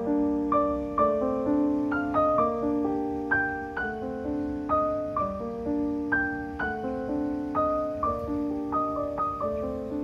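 Background piano music: a calm melody of single notes struck about twice a second over held lower chords, each note fading after it is struck.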